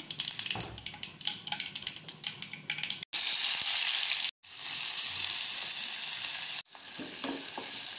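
Mustard and cumin seeds crackling in hot coconut oil in a non-stick pan. About three seconds in, sliced onions and green chillies go into the oil and a loud, steady sizzle follows, broken off abruptly a few times.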